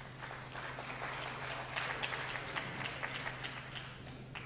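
Audience applauding, swelling and then fading away.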